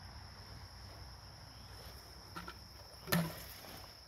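A bucket on a rope, thrown out into the river, lands with one sharp splash about three seconds in. A steady high-pitched insect drone runs underneath.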